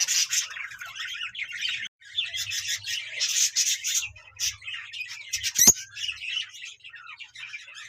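A flock of budgerigars chattering and chirping continuously, with a brief pause about two seconds in. A single sharp click sounds a little past halfway.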